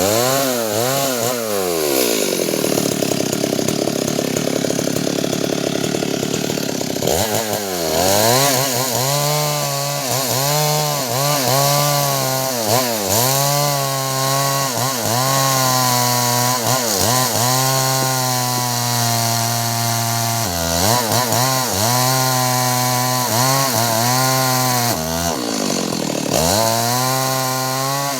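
Two-stroke chainsaw engine running: held at high revs for a few seconds, then idling with the throttle blipped again and again, the engine speed rising and falling quickly.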